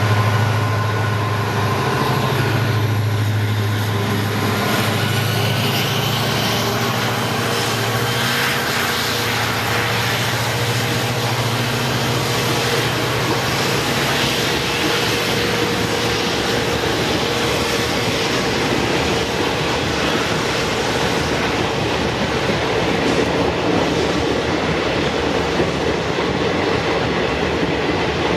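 EMD WDP-4B diesel locomotive's two-stroke V16 engine working hard in high notch while accelerating, its strong low drone giving way about ten seconds in to the steady rumble and clatter of passenger coaches rolling past.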